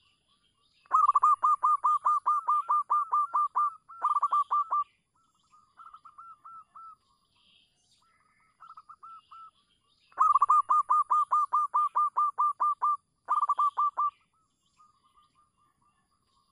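Zebra dove (perkutut) calling: two long runs of rapid, staccato cooing notes, about five a second, with fainter, shorter runs in between.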